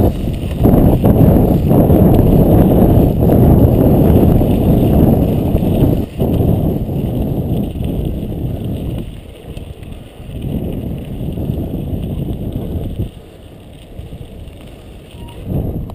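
Riding noise from a moving bicycle: wind on the camera microphone and tyres rolling over a wet, snow-dusted dirt road make a loud, even low noise. It eases around ten seconds in and drops further about thirteen seconds in.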